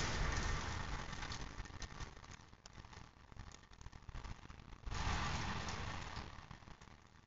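Light rain falling with scattered drips. The hiss of a vehicle's tyres on the wet road fades at first, then swells again about five seconds in and dies away.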